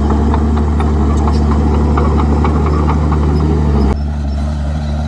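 Komatsu D51PX bulldozer's diesel engine running steadily, with a regular clicking of about three a second over it. About four seconds in, the engine sound drops suddenly and the clicking stops.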